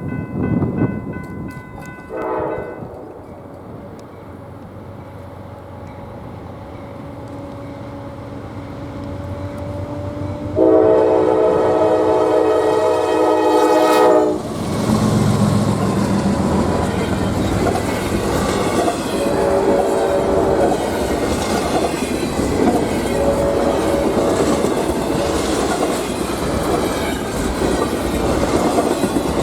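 Freight train passing behind diesel locomotives. A short horn note comes a couple of seconds in, then a loud blast of the multi-chime air horn of about three and a half seconds around ten seconds in. After that the locomotives' engines run by, followed by the rumble and clickety-clack of the freight cars rolling past.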